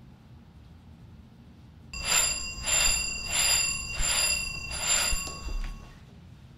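Telephone bell ringing: one ring of about four seconds, pulsing in strength about five times, starting about two seconds in.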